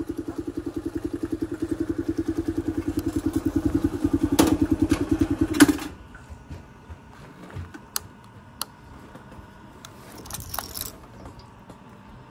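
Mondial MH Drift 150 motorcycle's single-cylinder engine idling with an even pulse, getting louder, then cutting off abruptly about halfway through. After that, a few light clicks and a brief jingle of keys.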